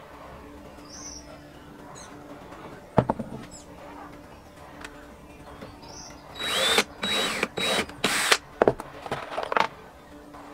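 Cordless drill running in several short bursts against a wooden frame, with a whine that rises and falls as the trigger is squeezed and released. About three seconds in there is a single sharp knock of wood.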